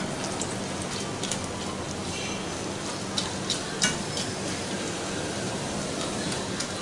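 Papri dough discs deep-frying in hot oil in a steel karahi, with a steady sizzle throughout. A wire-mesh skimmer stirs them and clicks against the pan a few times a little past the middle.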